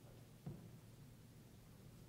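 Near silence: faint room tone, with one soft low thump about half a second in.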